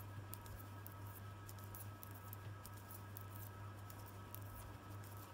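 Metal knitting needles clicking faintly and irregularly as purl stitches are worked in wool by hand, over a steady low hum.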